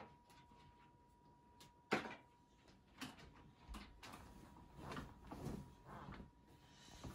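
Duvet cover and bedding rustling as a child smooths and then shakes out a duvet, in soft swells from about four seconds in. A sharp knock about two seconds in is the loudest sound.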